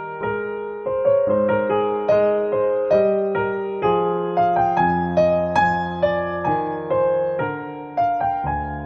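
Background music: a soft electric piano playing a slow melody of separate notes that ring and fade.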